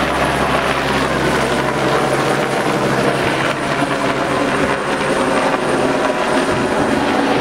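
Light single-engine helicopter flying overhead, a steady drone of rotor and turbine.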